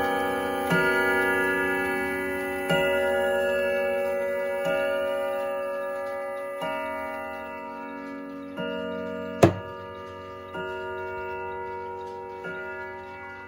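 Howard Miller Jennison triple-chime wall clock striking the hour on a chime rod: single hammer strikes about two seconds apart, each ringing on and slowly fading, with the clock hands at twelve. A sharp click about nine seconds in is the loudest sound.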